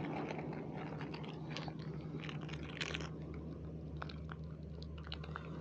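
A person chewing a biscuit, with small irregular crunches.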